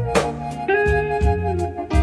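Instrumental background music with a steady beat and held melody notes.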